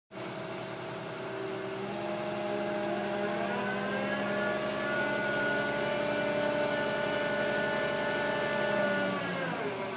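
Mobile crane's diesel engine revving up to work the hoist: it climbs in pitch about two seconds in and again around four seconds, holds high revs, then drops back down near the end.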